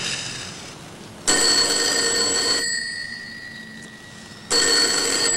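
Desk telephone ringing with a bell-like ring: two rings, each about a second and a half long, about three seconds apart.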